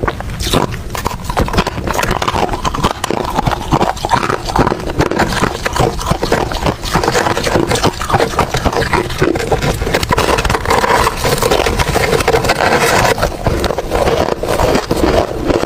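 Close-miked chewing of hard frozen ice: a steady run of loud crunches and cracks as the ice is bitten and ground between the teeth.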